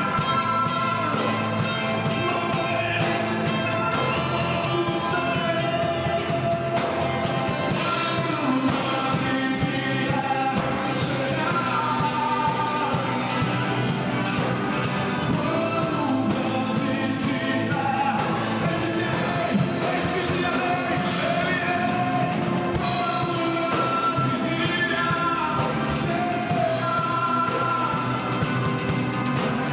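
Church worship band playing a song with singing over the band, with a steady beat throughout.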